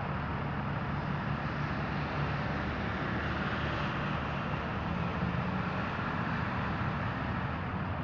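Steady outdoor background noise, a low rumble under an even hiss, with no distinct events.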